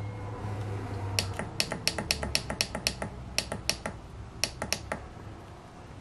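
Push buttons on a Bio Green plug-in thermostat being pressed over and over: about twenty short sharp clicks in quick runs as the set temperature is stepped up.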